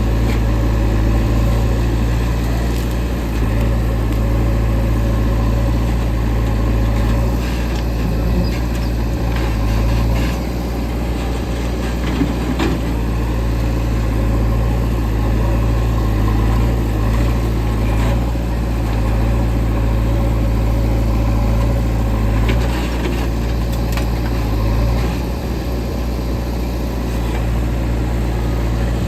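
Heavy diesel machinery engine running steadily at low revs: a loud, even low drone with a few faint knocks in between.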